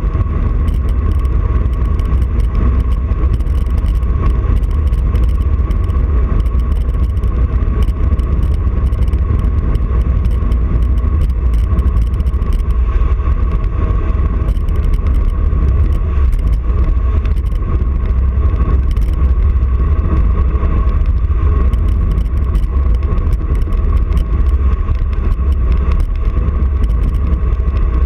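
Wind rushing over the camera's microphone on a fast road-bike descent: a loud, steady low rumble with a thin, steady whine above it.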